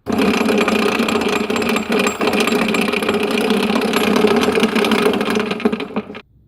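Head of a Bridgeport-clone knee milling machine running with a steady grinding noise from inside the head. It starts abruptly and cuts off sharply about six seconds in.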